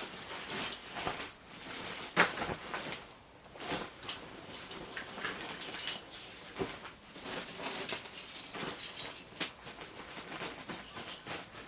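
Gear being handled and packed: irregular rustling and soft knocks, with light metal clinks a few times around the middle and again near the end.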